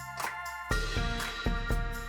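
Background music: sustained keyboard chords over a bass line, with a steady beat.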